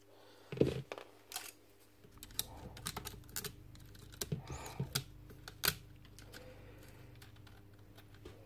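Clicks and taps from a Magpro magnetic drill's switches and casing being handled, with a dull knock near the start. From about two seconds in, a low steady hum can be heard, but the motor does not start: brushes that aren't pressing on the armature keep it from running.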